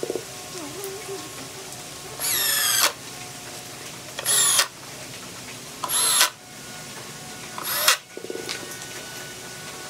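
Small electric drill or screwdriver run in four short bursts about two seconds apart, its motor whine rising in pitch as it spins up.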